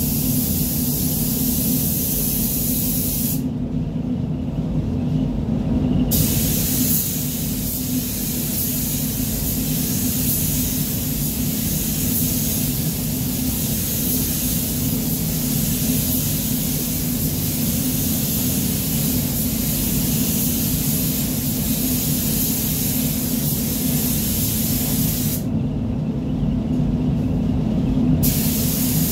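Compressed-air paint spray gun hissing in long passes while panels are sprayed, the hiss stopping twice for a few seconds as the trigger is released, about three seconds in and again near the end. A steady low hum from the spray booth's ventilation runs underneath.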